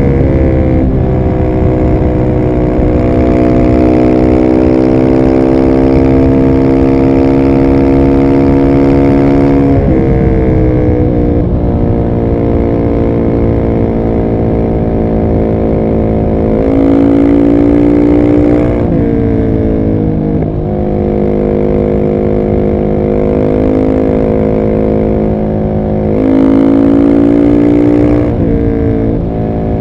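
Husqvarna 701 SM single-cylinder engine through a decatted Arrow exhaust with the dB killer in, running under way at fairly steady revs. Its pitch drops suddenly about a third of the way in, climbs and drops again in the middle, and does the same near the end.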